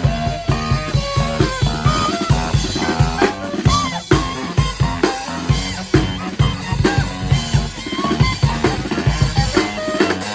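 Live brass street band playing a lively tune: horn lines over a steady beat on bass drum and snare.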